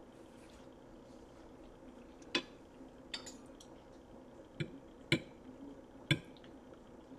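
Metal fork clinking against a plate as a slice of pizza is cut with the fork's edge: about five short, sharp clinks a second or so apart, the last two the loudest.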